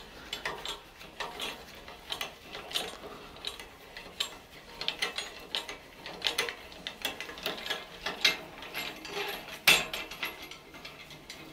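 Hand-cranked engine load leveler on a shop crane being turned, giving an irregular run of small metallic clicks and ticks from the mechanism and its hanging chains as the suspended engine tilts. One louder clack comes near the end.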